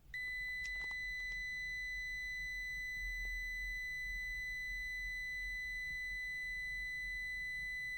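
CZDANG 12S multimeter's buzzer giving one long, steady high-pitched beep that starts a moment in and holds without a break, with a couple of faint clicks near the start.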